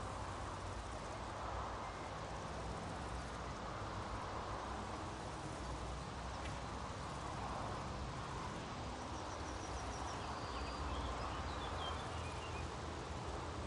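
Meadow nature ambience: a steady, even outdoor hiss with a low rumble beneath it, and a few faint bird chirps about two-thirds of the way through.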